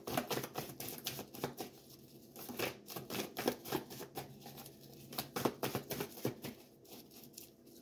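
A deck of tarot cards being shuffled by hand, the cards slipping and slapping against each other in a run of quick, uneven soft clicks.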